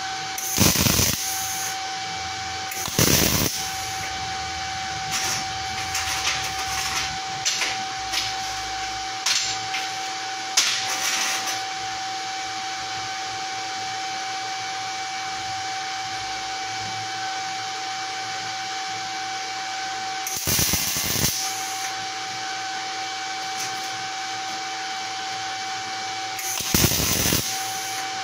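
MIG/MAG welding arc crackling steadily as a bead is run on 3.3 mm steel plate with 0.9 mm wire at about 130 A and 18.3 V, over a constant hum with a steady tone. There are a few louder bursts, near the start, about 3 seconds in, and twice near the end.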